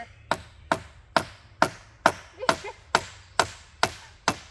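Steady hammering, about two blows a second: a heavy improvised striker, used in place of a hammer, driving a nail into a wooden trellis brace.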